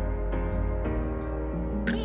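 Background music: held chords over a steady deep bass, moving to a new chord a little under a second in.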